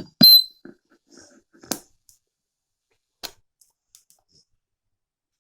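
Handling knocks on a hard surface: a loud clack with a short ringing ping about a quarter second in, then sharp single taps near 2 s and again past 3 s, with faint ticks in between.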